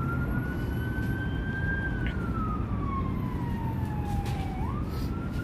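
An emergency vehicle siren wailing: one tone that climbs slowly, falls slowly over about three seconds, then sweeps quickly back up near the end, over a steady low rumble.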